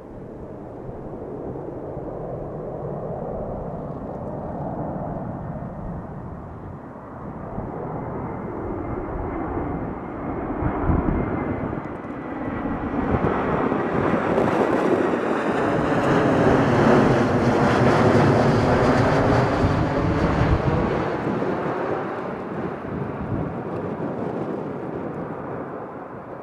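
Swiss Airbus A340-300 four-engine jet airliner flying low overhead on landing approach with gear down. The noise from its CFM56 turbofans builds to its loudest a little past the middle, then fades as it moves away. A thin whine falls slightly in pitch as it nears.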